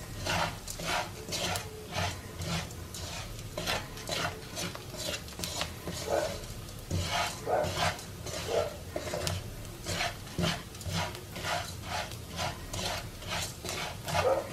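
A plastic spatula stirring and scraping dry rice through hot oil in a nonstick frying pan, in quick repeated strokes about two a second. The rice is being toasted golden and kept moving so it does not burn.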